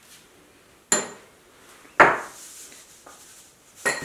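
Three sharp knocks of kitchenware being handled, the second the loudest, with a brief ring after the first and the last.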